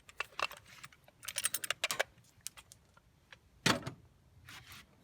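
Irregular sharp clicks and rattles of small hard parts being handled, in clusters with a louder knock a little after halfway, as a vending machine's coin mechanism is taken apart and checked for coins.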